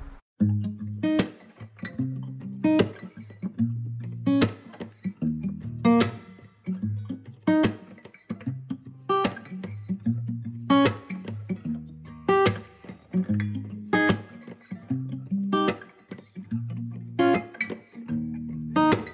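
Background music: guitar over a steady beat, with shifting bass notes and sharp regular percussion hits.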